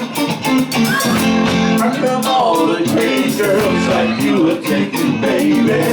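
A live band playing, with guitar prominent over the rest of the band.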